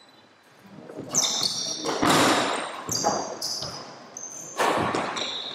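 Badminton rally: racket hits on the shuttlecock and sneakers squeaking on a wooden court floor, in an echoing sports hall. The rally sounds start about a second in.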